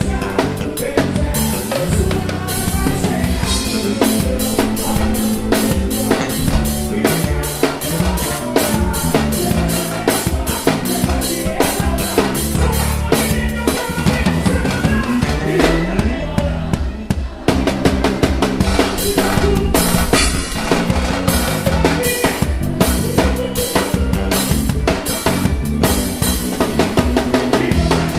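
Live band music led by a drum kit: a steady beat of kick drum and snare with rimshots over bass and other instruments. About sixteen seconds in the low end drops out for a moment in a short break, then the full band comes back in.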